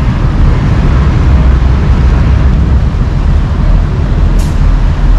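Loud, steady low engine rumble, with a short hiss about four seconds in.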